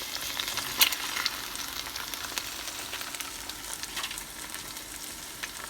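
Veal cutlets topped with melted cheese sizzling steadily in olive oil in a frying pan, with a sharp click about a second in.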